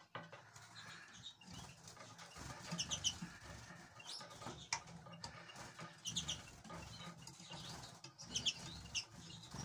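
Small aviary finches giving short, high chirps, often in pairs or threes, every second or so, with brief wing flutters as they hop between perches.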